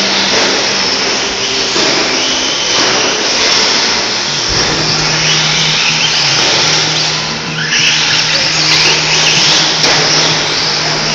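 Team Losi Racing TLR 22 electric 1/10 buggy and short course trucks running laps on an indoor off-road track: electric motor whine rising and falling with the throttle, over tyre and chassis noise. A steady low hum joins about four and a half seconds in.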